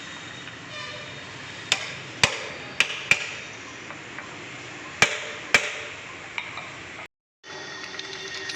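Hammer blows on metal, about six sharp strikes with a short ringing after each, four in quick succession and then two more a couple of seconds later, during refitting of a lorry gearbox.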